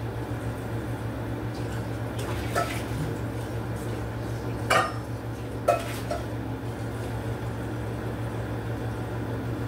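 A few short metallic clinks of kitchenware, the two sharpest about five and six seconds in, over a steady low hum.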